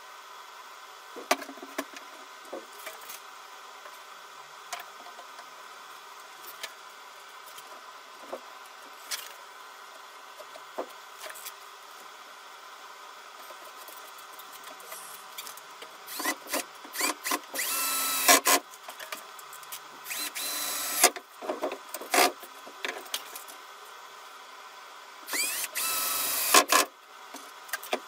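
Cordless drill running in three short bursts of about a second each in the second half, each spinning up with a rising whine. Before that, light clicks and knocks of wooden pieces being handled.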